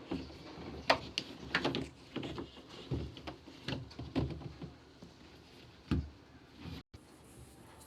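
Irregular clicks and knocks of parts being handled, about a dozen over several seconds, with a sharper knock near the middle and another near the end.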